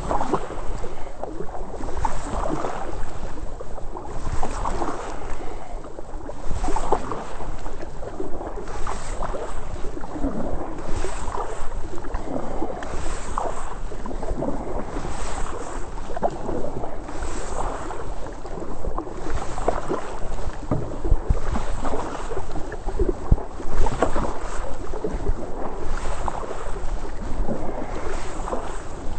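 Double-bladed kayak paddle dipping and pulling through calm creek water, alternating sides, with a watery swish about once a second.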